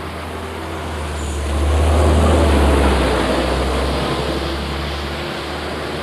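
Low rumbling noise of a passing vehicle, swelling about two seconds in and then fading away.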